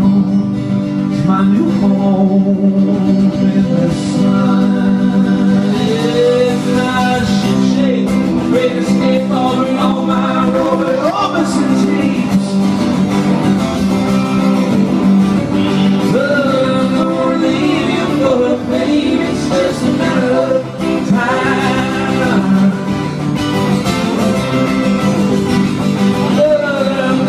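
Live acoustic and electric guitar playing together: steady acoustic guitar strumming under electric guitar lead lines with bent, gliding notes.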